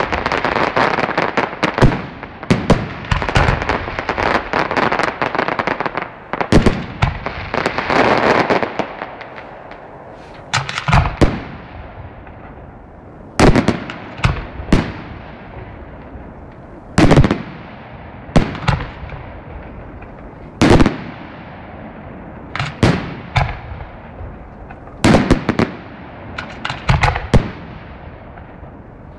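Aerial firework shells bursting. First comes a dense stretch of rapid crackling and bangs, then from about ten seconds in single loud booms every one to three seconds, each trailing off into a fading rumble.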